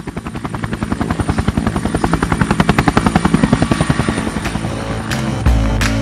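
Helicopter rotor blades beating in a fast, even rhythm of about eight beats a second, swelling and then fading. About five and a half seconds in, rock music with a heavy bass takes over.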